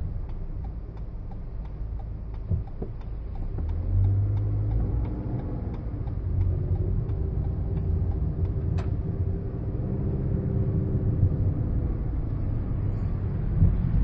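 A car driving, heard from inside the cabin: a steady low rumble of engine and road noise that grows louder about four seconds in, with one sharp click near the middle.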